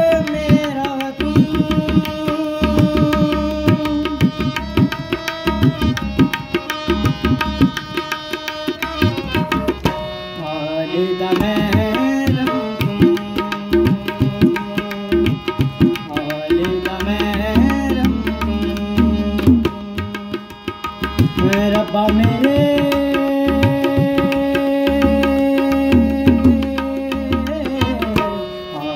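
Tabla and harmonium playing together: a run of tabla strokes over the harmonium's held chords. The music thins briefly about ten seconds in and again about twenty seconds in.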